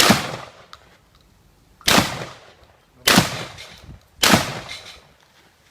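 Four gunshots, spaced a little over a second apart, each trailing off with a short echo.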